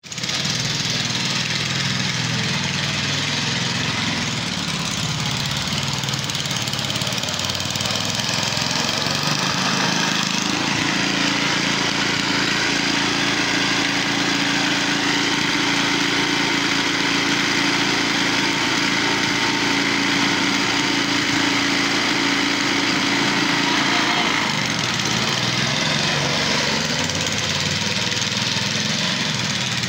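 Small petrol engine of a walk-behind cylinder (reel) lawn mower running steadily as it cuts. Its note changes about ten seconds in and changes back near twenty-five seconds.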